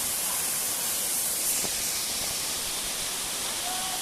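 Waterfall: a steady, even rush of falling water with a strong hiss.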